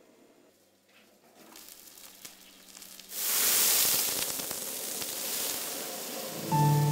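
Food hitting a hot wok, sizzling. After a faint start there is a sudden loud hiss about three seconds in as steam billows up, and it keeps sizzling steadily after that.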